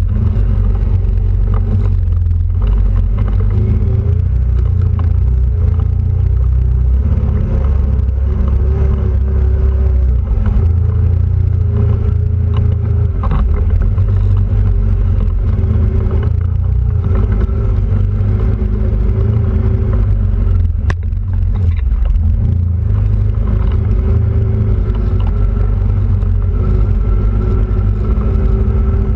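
Quad bike (ATV) engine running under way, heard on board: a loud, steady low rumble whose pitch wavers a little as the throttle changes.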